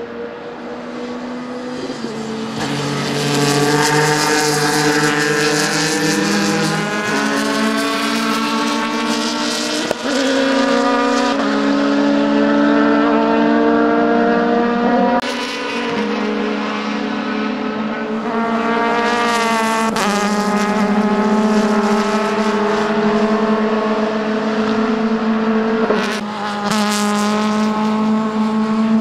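Several open-cockpit sports prototype race cars running hard on the circuit, their high-revving engines overlapping at different pitches. The engine notes drop sharply about 10, 15 and 26 seconds in.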